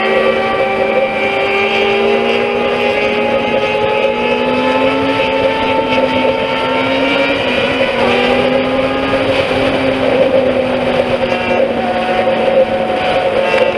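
Inline-four motorcycle engines running at highway speed: the riding Yamaha FZ8 and a straight-piped Yamaha R6 just ahead. The engine pitch rises slowly, drops briefly about eight seconds in, then climbs again.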